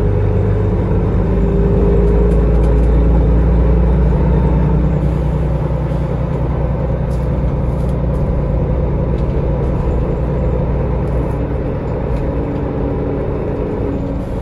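Solaris Urbino 18 articulated city bus under way, heard from inside the passenger cabin: a steady low rumble of its DAF MX11 diesel engine and Voith automatic drivetrain mixed with road noise. It is a little louder for the first few seconds, then eases off slightly.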